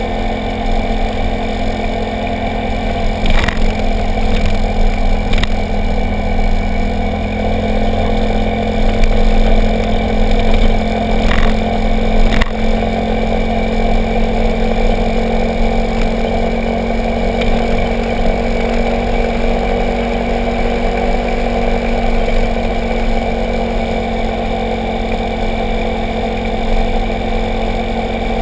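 Motorcycle engine running at a steady cruise, with road noise. A few short sharp knocks come through, two near the start and two around the middle.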